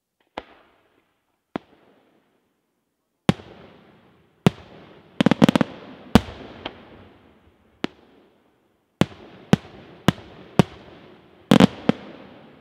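Daytime fireworks shells bursting in sharp, loud bangs at irregular intervals, each trailing off in an echo. There is a rapid cluster of cracks about five seconds in and another near the end.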